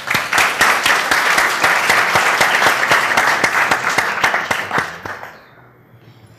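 Audience applauding: many hands clapping together, loud at first and dying away about five seconds in.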